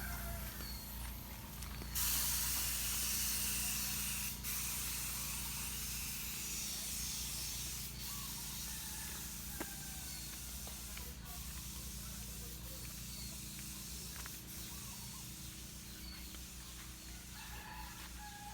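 Paint spray gun spraying: a steady hiss that starts suddenly about two seconds in and grows fainter after about six seconds, over a low steady hum.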